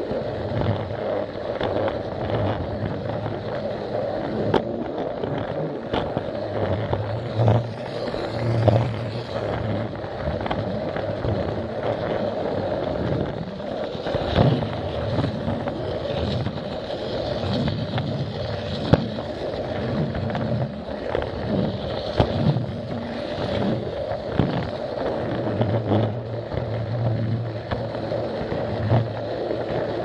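Battery-powered Plarail toy train running along plastic track, heard from a camera riding on the train: a steady motor hum with the wheels rattling on the track and irregular clicks and knocks.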